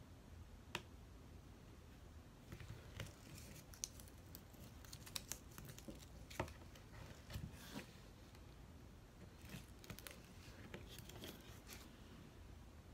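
Faint, scattered clicks and crinkles of rhinestone ribbon being handled and pressed along the edge of a metal charger tray.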